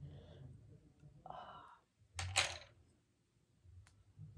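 Faint handling of a metal hoop earring being worked out of an earlobe: soft clinks and rustles, with one short, louder rustle about two seconds in.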